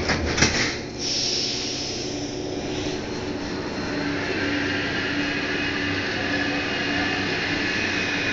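Paris Métro MP89CC rubber-tyred train running, heard from inside the car: a few knocks and a brief hiss in the first second, then steady running noise with a whine from the traction motors that comes up from about halfway through.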